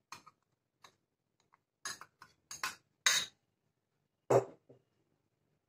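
Metal spoon tapping and scraping inside a small glass bowl as milk powder is emptied into a glass mixing bowl: a run of short clinks and knocks, with a louder knock about four seconds in as the small glass bowl is set down on the table.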